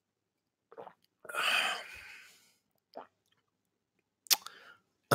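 A man drinking from a glass of water: a small swallow about a second in, then a breathy exhale lasting about a second, followed by a couple of short clicks near the end.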